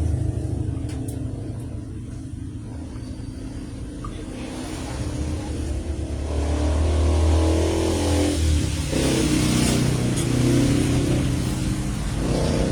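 A motor running with a steady low hum, speeding up and slowing down in spells about six seconds in and again near the end.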